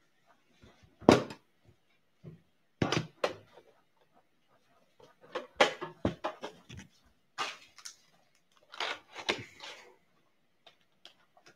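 Knocks and clatter of a metal Upper Deck card tin being handled, the loudest about a second in, followed by bursts of crinkling as its clear plastic shrink-wrap is peeled off and the box inside is lifted out.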